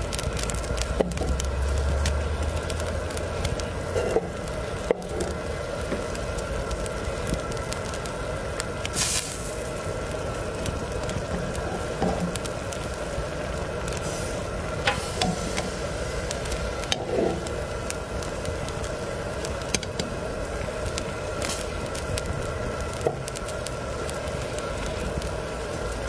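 Pot of ramen broth boiling hard, with steady bubbling and sizzling and a fire crackling under it. Metal tongs stir the noodles, with scattered sharp clicks and a brief louder rush about nine seconds in.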